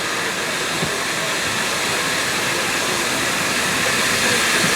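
Steam hissing steadily from a South African Garratt steam locomotive standing at a station, growing slightly louder toward the end.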